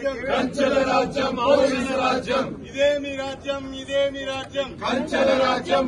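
A group of men chanting Telugu protest slogans in unison, in a steady, rhythmic cadence with drawn-out syllables.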